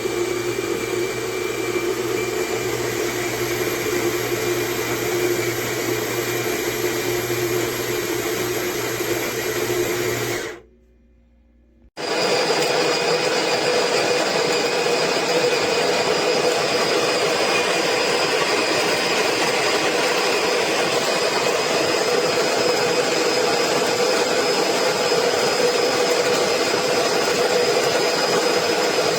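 AMZCHEF electric burr coffee grinder running and grinding coffee beans for its two-cup setting, a steady whirring grind. It stops about ten seconds in, then after a short pause starts again abruptly and runs on steadily.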